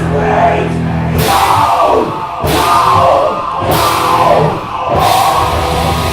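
Live heavy rock from a two-piece band, drum kit and distorted guitar played loud. A held chord gives way to four big accented hits, each about a second and a quarter apart, before the chord rings on.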